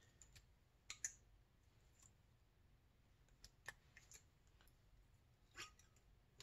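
Near silence broken by faint, scattered clicks and taps of fingernails and a small pick working on a powder-coated snowmobile cylinder head while masking tape is picked off it. The sharpest click comes about a second in.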